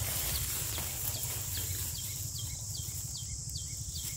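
Insects calling: a steady high-pitched drone with a short chirp repeating about two to three times a second, over a low rumble.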